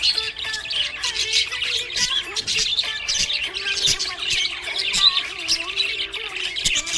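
Small pet parrots chirping and chattering continuously, many overlapping quick high chirps and warbles.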